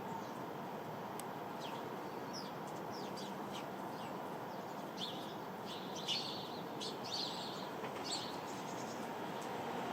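Sparrows chirping: a run of short, quick chirps that gets busier past the middle, over a steady background hum.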